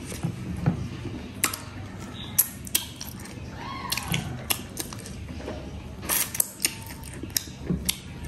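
Fingers scraping and wiping across a metal plate to gather the last of the curry and rice, with scattered sharp clicks and taps of fingertips on the metal.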